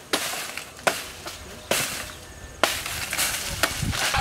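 Repeated blade strokes hacking into a banana plant, about one a second. Each stroke gives a sudden hit followed by a crackling rustle of dry banana leaves.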